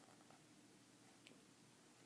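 Near silence: room tone, with one faint tick just past the middle.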